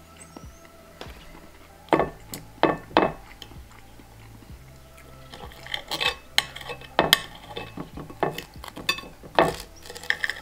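Knife and fork clinking and scraping against a plate while cutting food. There are three sharp clinks about two seconds in, then more frequent ones from about halfway.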